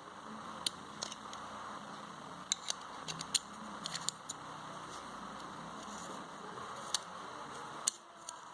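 Freshly oiled mechanism of an USHA sewing machine being turned, a steady soft whirring with scattered small clicks that stops shortly before the end. The mechanism now turns smoothly after a jam has been filed out and oiled.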